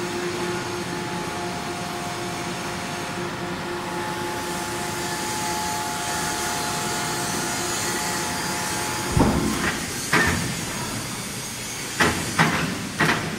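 Electric overhead crane hoist running with a steady hum and a few held tones while it lowers a heavy welding positioner on chains. About nine seconds in the hum stops, and five heavy metallic clanks and thumps follow over the last four seconds as the load and its chains come down.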